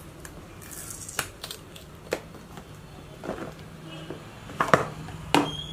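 Hands peeling the seal tab and working the lid of a cardboard smartphone box on a glass counter: scratchy paper rustles and a string of sharp taps and clicks, the loudest two near the end.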